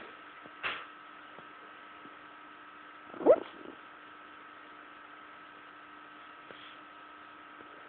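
Sleeping dog crying out in its sleep while dreaming: a brief breathy noise about a second in, then one short, sharp rising whimper a little over three seconds in, over a steady electrical hum.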